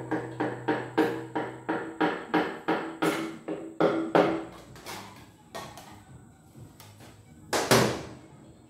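Hammer handle knocking a piston down through a ring compressor into a cylinder bore of a Lister diesel engine block, at about three knocks a second. The knocks slow and stop about four seconds in. A few scattered knocks follow, with one louder knock near the end.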